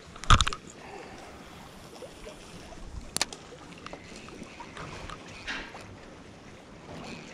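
Steady wind and sea-water noise, with a loud sharp knock about half a second in and a thinner click about three seconds in.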